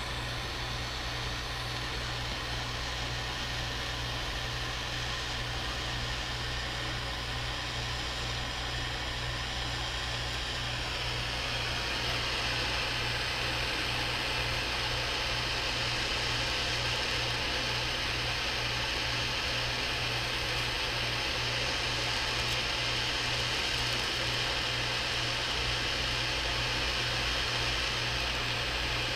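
Gas soldering torch burning with a steady hiss and low roar as it heats a copper pipe joint on a radiator; the hiss gets louder and brighter about twelve seconds in.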